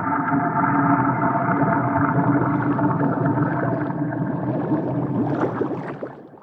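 Designed monster call for the Sirenjaw creature: a long drawn-out cry holding several steady tones over a rough low layer, fading away near the end.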